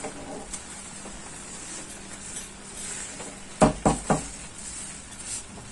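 Wooden spatula stirring sugar into grated carrots in a metal pan, with soft scraping. About three and a half seconds in come three quick knocks of the spatula against the pan.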